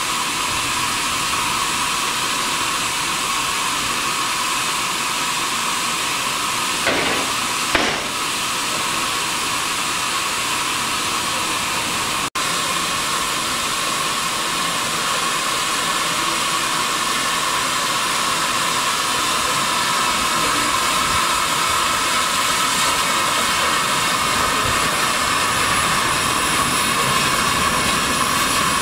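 Garratt steam locomotive No. 87 hissing steadily as steam escapes, with two short knocks about seven and eight seconds in. The hiss grows a little louder near the end as the engine moves up close.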